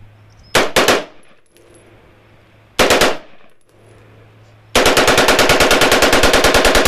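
AR-15 5.56 rifle with a Slide Fire bump-fire stock firing: a quick burst of three shots about half a second in, another short burst near three seconds, then a long bump-fire string of rapid shots, about a dozen a second, starting near five seconds in.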